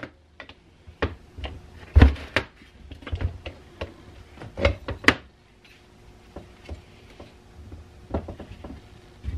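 Cast-iron parts of a 1920s Keystone Iron City hand-crank grinder knocking and clinking against each other and the workbench as it is taken apart. The loudest knock comes about two seconds in, and another cluster of clanks comes around five seconds, with lighter ticks between.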